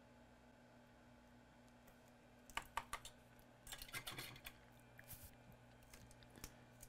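Faint, scattered clicks and taps of small repair tools handled at a bench, in a few loose clusters from about two and a half seconds in, over a faint steady hum.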